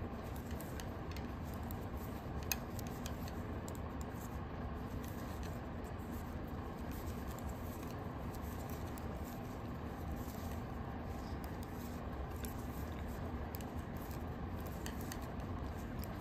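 Faint clicks and scratches of knitting needles working yarn, over a steady low background hum, with one sharper click about two and a half seconds in.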